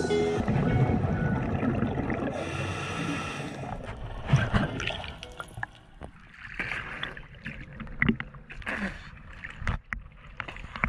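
Background music in the first few seconds gives way to irregular water splashing and gurgling, with sharp slaps of water at the surface.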